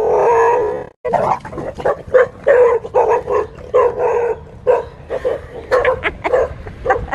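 Dogs barking in a rapid string of short barks, about two or three a second, after one drawn-out cry in the first second.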